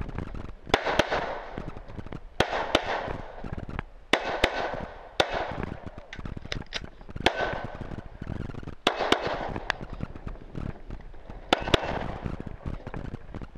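Semi-automatic pistol shots, mostly in quick pairs, with a second or two between pairs as the shooter moves to new targets; each shot is sharp with a short echo trailing it.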